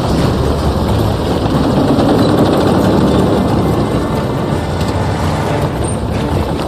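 Bulldozer's diesel engine running hard under load as its blade pushes snow and ice off the road.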